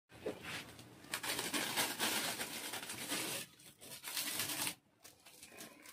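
Clear plastic stretch-wrap film rustling and crackling as a small roll is handled and film is pulled off it. There is a long stretch of crinkling noise from about a second in, a pause, then a shorter burst.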